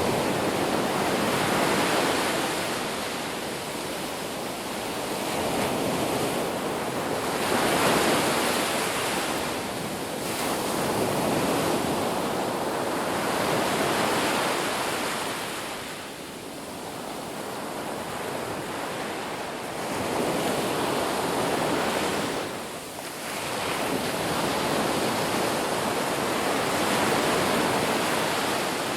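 Ocean waves breaking and washing up a beach, a steady rush of surf that swells and eases every few seconds.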